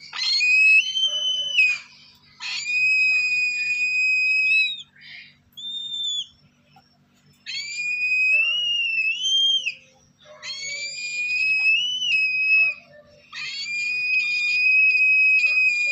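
Lesser sulphur-crested cockatoo nestlings giving begging calls: a series of about six long, high, slightly wavering calls, most lasting one to two and a half seconds, with short gaps between them.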